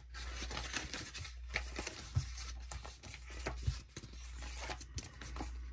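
Paper rustling and crinkling with small irregular clicks as sticker-book pages and sticker sheets are handled.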